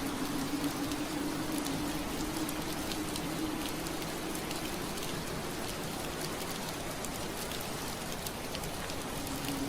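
Steady rain hissing, with many small drops ticking against window glass. Under it runs a low hum that fades out about a third of the way through and comes back near the end.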